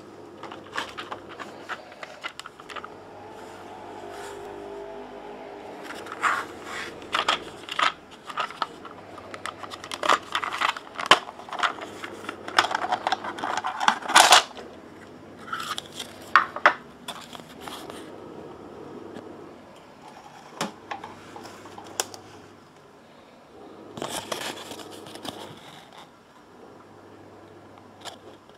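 Hands handling and opening a clear plastic toy-train display case: irregular clicks, scrapes and rattles of the plastic, in clusters with quieter stretches between, the busiest in the middle.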